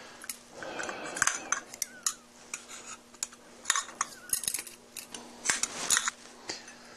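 Thin metal grill rods clinking and rattling against one another and against a metal side tube as they are handled and fitted into the tube's drilled holes: an irregular run of light metallic clinks.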